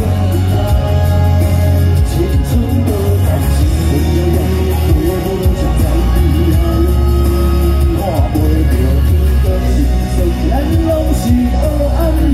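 Two male singers performing a Taiwanese Hokkien song live through a PA system: sung vocals over a backing track with a heavy, steady bass beat.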